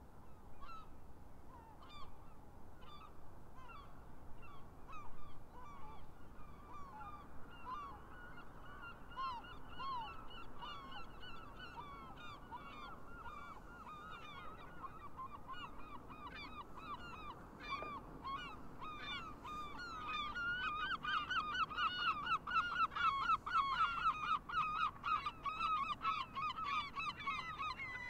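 A flock of geese honking, many short calls overlapping. The calling grows denser and louder about two-thirds of the way through.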